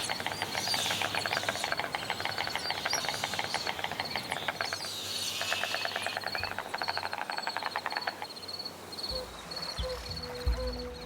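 White storks clattering their bills: two bouts of rapid rattling, the second stopping about eight seconds in, over a steady chain of high chirps. Soft music comes in near the end.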